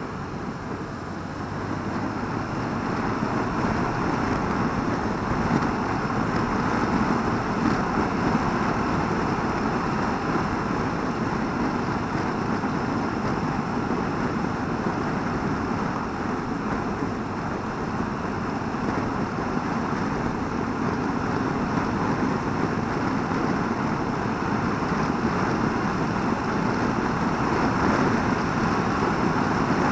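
BMW R1200RT flat-twin touring motorcycle riding along at road speed: a steady mix of engine and wind rush, growing a little louder about two seconds in.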